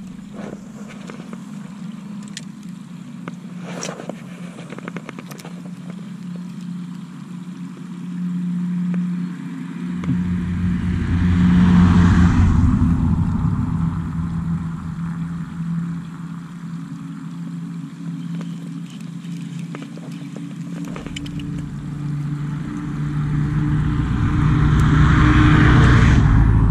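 Two road vehicles passing close by: the first swells and fades about twelve seconds in, and the second, a pickup truck, grows to its loudest near the end. A steady low hum runs underneath throughout.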